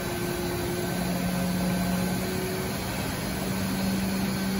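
Haas VF-2SS vertical machining center's 12,000 RPM spindle spinning up with no cut, its steady tone climbing slowly in pitch as it nears top speed.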